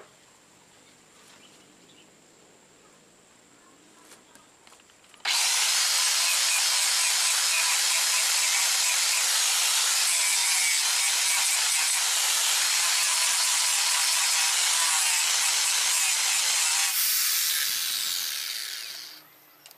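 A small hand-held electric angle grinder starts suddenly about five seconds in and runs loudly and steadily against a machete blade for about twelve seconds, a rough grinding hiss over a thin motor whine, then winds down near the end.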